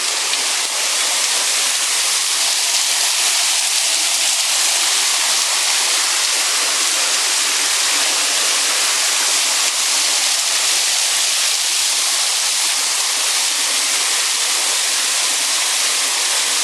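Waterfall pouring: a loud, steady rush of falling water that does not let up.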